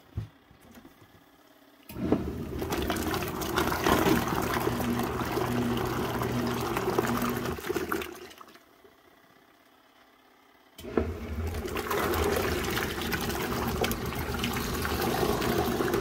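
Folding portable washing machine agitating a load with its lid open: a motor hum under churning, splashing water. It starts about two seconds in, runs for about six seconds, goes nearly quiet for about two seconds, then starts again abruptly.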